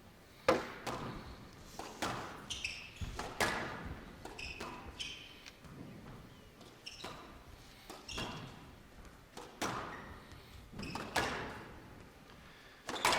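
A squash rally: the rubber ball struck hard by rackets and smacking off the court walls at a steady pace, each hit ringing in a large hall.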